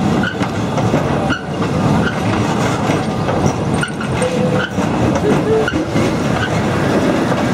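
Wooden cars of the Sóller tram rolling slowly past on street rails: a steady rumble of wheels with a click or knock every second or so, and a couple of brief high wheel notes near the middle.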